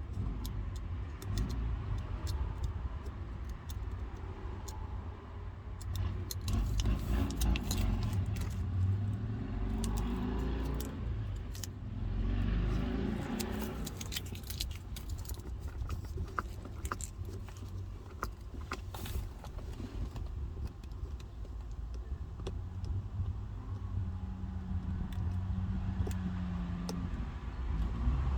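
Hands and a craft knife trimming vinyl wrap around a car's shift dial: scattered light clicks and rustling over a steady low rumble.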